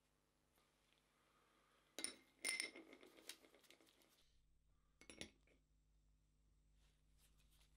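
A small steel pin is dropped into a glass jar, clinking against the glass with a brief ringing about two seconds in. A little after five seconds, two more quick clinks of metal tweezers on the glass.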